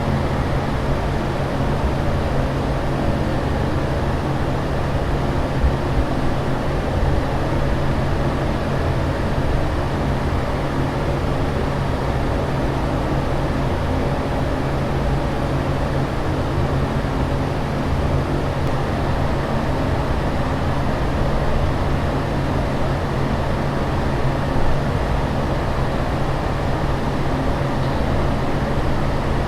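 Steady airliner cabin drone in flight: an even rushing noise with a constant low hum underneath, unchanging throughout.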